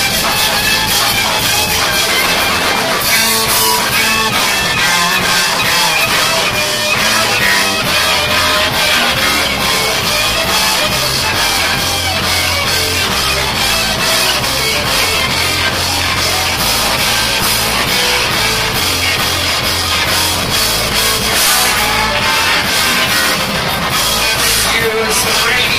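Live rock band playing electric guitars over a drum kit, with steady cymbal and drum hits throughout.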